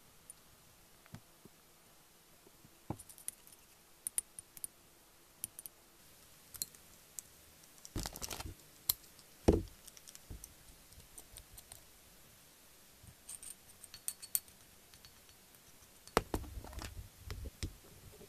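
Scattered light clicks, taps and scrapes of a plastic spoon against plastic pet bowls as wet cat food is stirred and portioned out. There is a louder knock about halfway through and a cluster of louder taps and rustles near the end.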